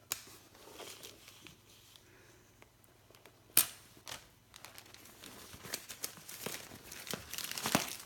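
Plastic caution tape being peeled and torn off a cardboard box and crumpled in the hand, crinkling, with one sharp snap about three and a half seconds in. The crinkling grows busier toward the end.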